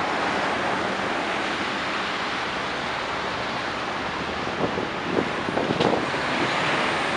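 Steady city road-traffic noise from idling and passing vehicles, with a few short knocks about five to six seconds in.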